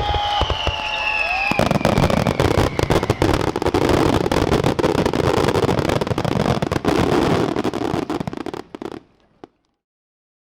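Hand-held tezutsu hanabi bamboo-tube fireworks spraying sparks: a loud, dense rushing hiss full of rapid crackles that builds about a second and a half in, then dies away near the end with one last small pop.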